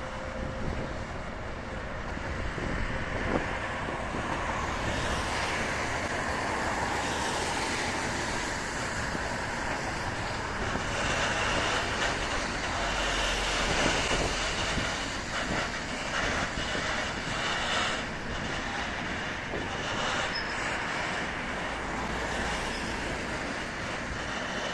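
A freight train of tank wagons hauled by a diesel locomotive rolling slowly past, a steady rumble of wheels on rail, with a faint high wheel squeal around the middle.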